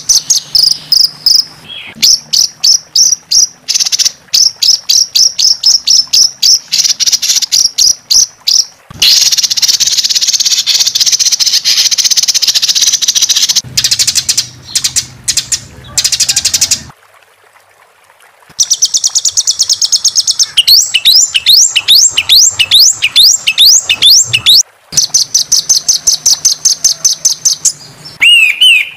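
Songbird calls spliced together as bird-song training audio ('tembakan kasar' and 'roll tembak'). The track runs through fast series of sharp high chips, a dense buzzing trill, a short gap a little past halfway, then quick runs of downward-sweeping notes. Each run starts and stops abruptly where the recordings are joined.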